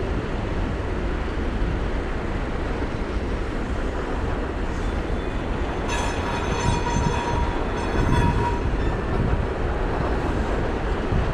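Freight train of boxcars and tank cars rolling past at steady speed, a continuous rumble of wheels on rail. About six seconds in, a high metallic squeal of wheels on rail rises over it for two to three seconds.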